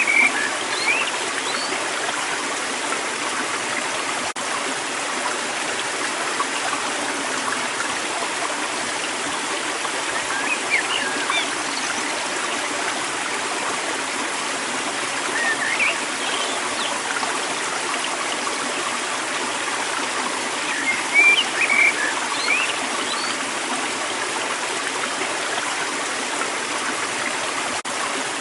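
River water flowing steadily, with small birds chirping in short bursts every few seconds.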